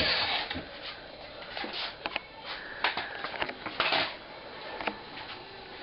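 A power drill stops within the first half second, then come scattered short clicks, taps and rustles of hands at work, fixing unstretched canvas paintings to a door.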